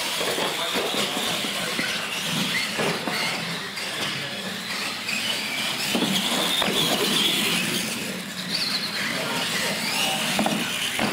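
Radio-controlled monster trucks racing on a concrete floor: a high electric-motor and gear whine that wavers up and down with the throttle, over a steady hiss.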